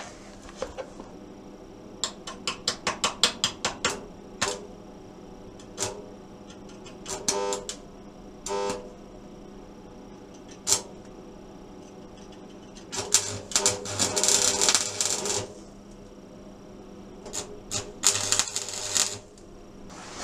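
Clinks and rattles of steel parts and tools being handled: a quick run of sharp clicks about two seconds in, a few single clicks and short ringing knocks, then two longer, hissier spells of scraping noise in the second half.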